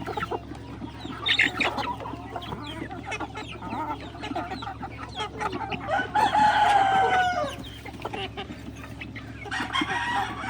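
A flock of chickens clucking, with a rooster crowing once, one long call about six seconds in.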